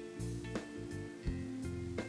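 Instrumental background music with held notes and a steady beat.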